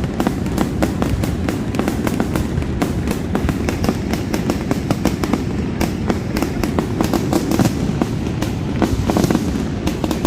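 Fireworks going off in rapid succession: a dense crackle of many sharp pops a second over a continuous low rumble of bursts.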